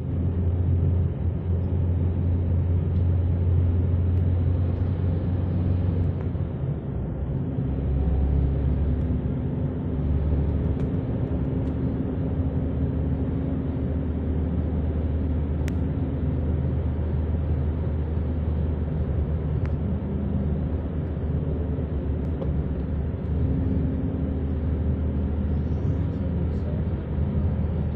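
Steady low rumble of a car driving along, heard from inside the cabin: road and engine noise.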